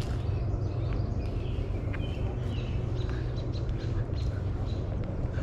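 Small birds chirping repeatedly in short high notes over a steady low rumble, with a few light clicks.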